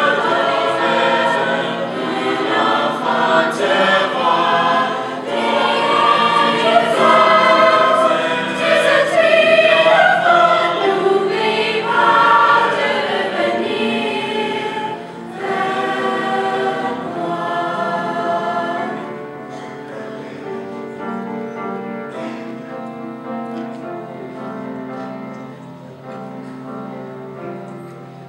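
Mixed-voice high school choir singing in harmony, the closing section of a song. It is fuller and louder in the first part, then grows softer over the last third and ends quietly.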